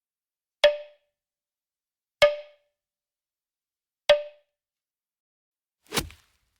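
Wood block struck three times, roughly a second and a half apart, each a short knock with a brief ringing note. Near the end comes one deeper, heavier drum-like hit.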